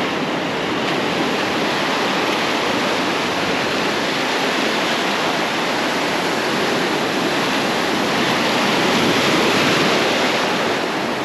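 Ocean surf breaking and washing in over shallow sand, a steady rush of water that swells a little near the end.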